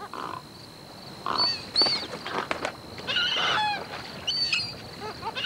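Great egrets giving a series of short, rough calls, the kind of noise that is truly disgusting for such an elegant bird.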